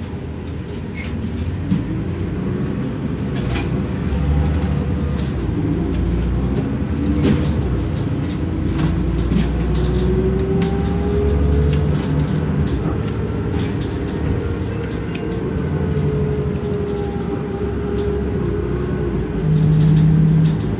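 Cummins ISM diesel engine and ZF six-speed automatic transmission of a 2007 New Flyer D40LF city bus under way, heard from inside the passenger cabin: a steady low drone with a whine that rises and falls with speed, and scattered clicks and knocks.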